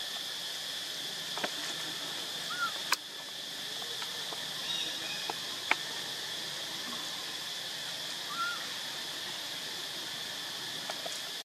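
Steady forest insect chorus, an even high drone, with a few short chirps and several sharp clicks scattered through it.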